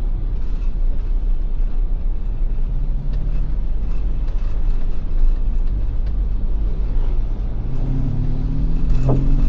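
Steady low road and engine rumble inside a Ford Everest SUV driving on wet roads, with scattered light mechanical clicks. A low droning tone rises out of the rumble near the end.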